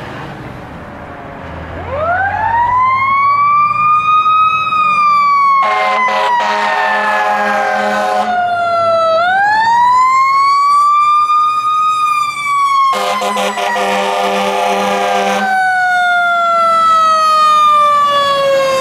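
Fire engine siren winding up twice, each time rising quickly to a high wail and then slowly falling. Two long air-horn blasts of about two and a half seconds each sound over the falling siren. Under it, the truck's diesel engine rumbles.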